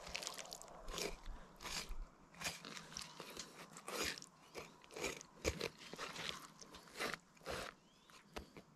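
Knife blade cutting along a whitefish's rib cage: a run of quiet, irregular crunches as it slices through flesh and past the rib bones.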